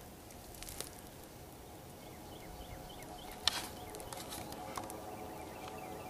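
Dry twigs snapping and brush crackling as someone pushes through burned undergrowth, the sharpest snap about three and a half seconds in, over a faint steady hum.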